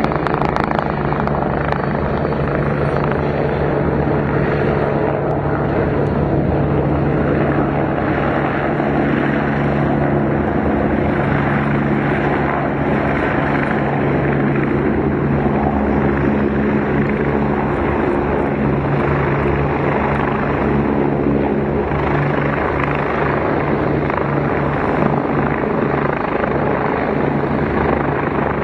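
Formation of military helicopters, a Denel Rooivalk attack helicopter and Atlas Oryx transport helicopters, flying past together: a loud, steady drone of rotors and turbine engines with a low, even hum.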